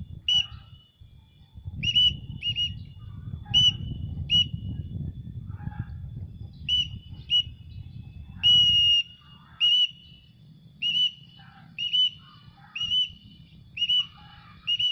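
Short high whistles repeated about once a second, each starting with a quick upward flick and then held level, used to call a free-flying pet bird back down to the hand. A low rumble runs under the first half and stops about nine seconds in.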